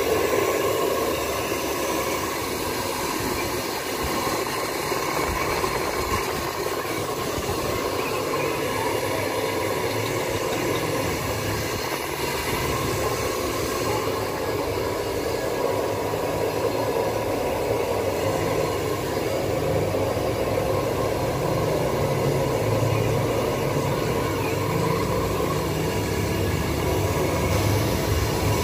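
Handheld hair dryer running steadily as it blows on a Shih Tzu puppy's fur, an unbroken rushing hiss with a motor hum.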